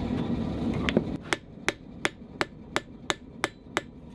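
Rounding hammer made by Daniel Moss striking a red-hot steel plate on an anvil with its rounded face to texture the surface: about nine evenly spaced blows at roughly three a second. A steady rushing noise is heard at first and drops away after about a second.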